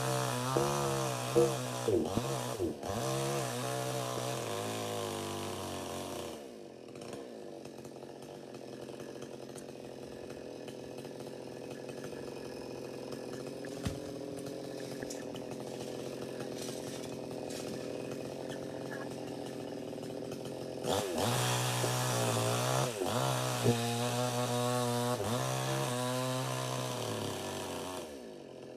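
Two-stroke chainsaw cutting a coconut tree: at full throttle with its pitch dipping and wavering under load for about six seconds, then dropping to a quieter, steadier running. It opens up again for about seven seconds near the end before falling back.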